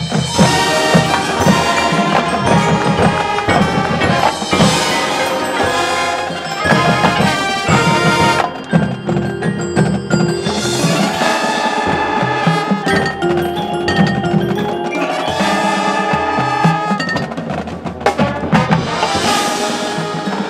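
High school marching band playing its competition show music: winds holding sustained chords over a front ensemble of mallet keyboards and drums, with mallet percussion prominent.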